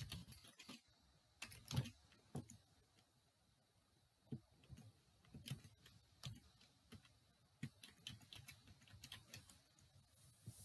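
Faint computer keyboard typing: irregular key taps as a login username and password are entered, with a pause of about two seconds a few seconds in.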